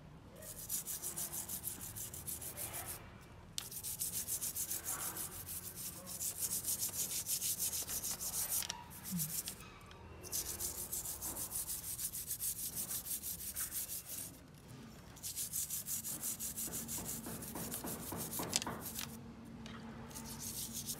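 Toothbrush scrubbing a rusty motorcycle drive chain wet with a petrol and dish-soap mix: brisk back-and-forth strokes, about four or five a second, in runs of a few seconds broken by short pauses.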